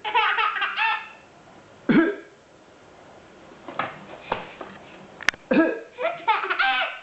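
An eight-month-old baby laughing out loud in bursts, set off by a person's short coughs. A laugh comes at the start, single coughs about two and four seconds in, and a longer run of laughter near the end.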